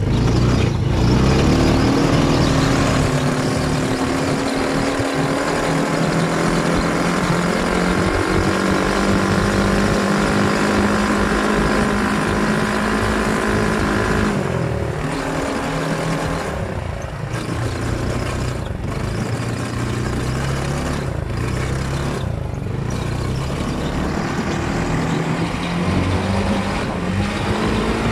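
Sand buggy engine running under way, heard from inside the open cab. Its pitch climbs in the first few seconds, holds steady, dips about halfway through, then climbs again near the end. A steady hiss of wind and sand noise runs under it.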